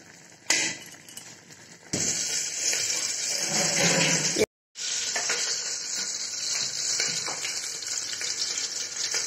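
Apple pieces simmering in thick sugar syrup in a steel kadhai, bubbling and sizzling as the syrup cooks down toward thickness for apple murabba. The sizzle starts about two seconds in, drops out for a moment about halfway, then carries on steadily.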